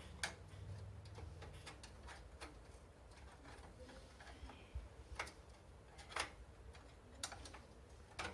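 Irregular sharp clicks and light knocks of computer case parts being handled and fitted back into place, several of them a second or so apart.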